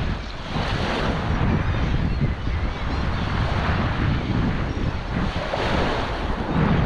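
Wind buffeting the microphone over small waves lapping along a pebble shoreline, a steady noisy rush with a heavy low rumble.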